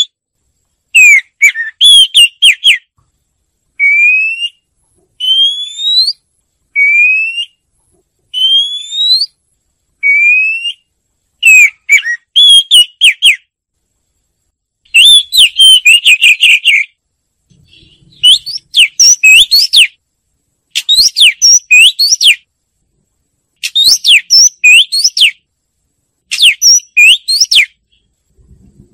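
Oriental magpie-robin singing: loud, clear whistled phrases separated by short pauses, with a run of single rising whistles about a second apart in the first half and denser, warbled phrases in the second half.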